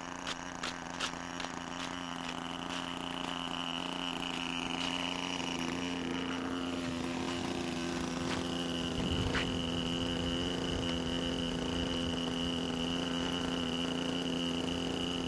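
Small two-stroke OS 15 FP glow engine with an 8×4 propeller, on a radio-control model airplane, running: a few clicks near the start, then a buzz that grows louder over the first few seconds and holds steady.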